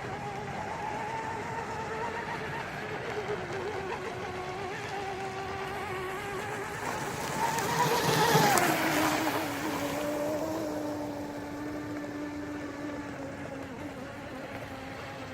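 Pro Boat UL-19 RC speedboat's brushless motor on 6S, a high-pitched whine as it runs laps at speed. It grows louder and passes close about eight seconds in, the pitch dropping as it goes by, then carries on lower and fainter.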